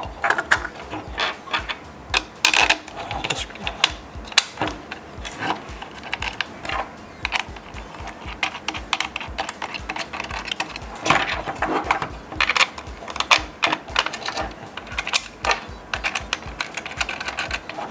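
Irregular clicks and light knocks of a backdrop paper jammer's clamp parts being handled and fitted back onto the end of a crossbar by hand.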